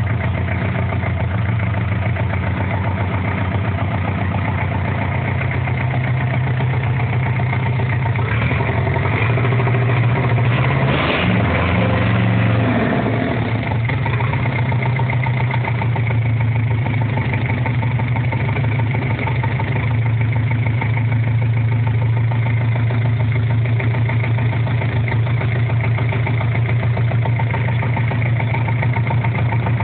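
Isuzu C190 four-cylinder diesel engine idling steadily, its note briefly unsettled about eleven to thirteen seconds in before settling back to the same even idle.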